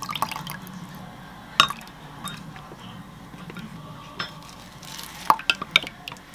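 Wooden spoon clinking and tapping against a glass mug while liquid seasonings are spooned in and stirred into a sauce. There is a sharp tap about a second and a half in and a quick run of clinks near the end.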